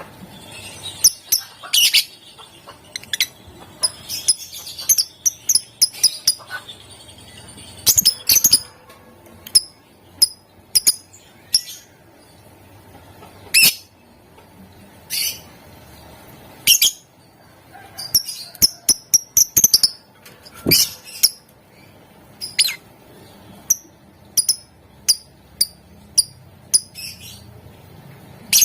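Lovebird giving sharp, high-pitched chirps, some single and some in quick runs of several, with short gaps between.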